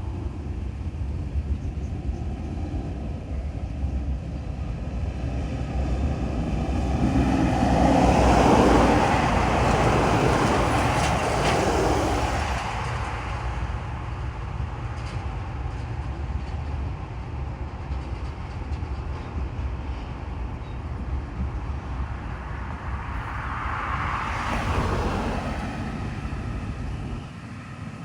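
An empty log train rolling past on the rails, with a steady low rumble of wagons and wheels. The sound swells twice, each time falling in pitch as it goes by.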